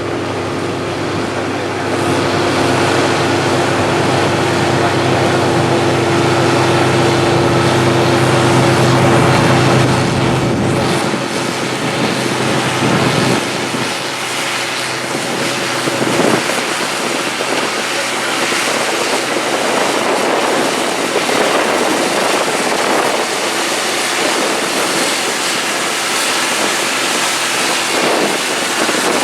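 Farm machinery, the combine and the grain-cart tractor, running with a steady engine hum, under heavy wind noise on the microphone. About ten seconds in, the engine hum fades and mostly wind noise is left.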